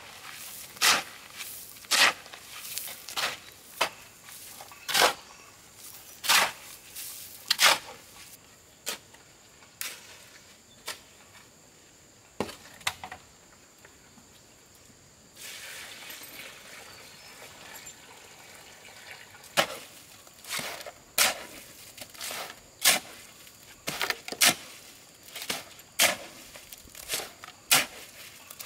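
Repeated sharp strikes of a hand tool on wood or stone, about one every second and a half. They are loud at first, fainter through the middle stretch, and loud again near the end.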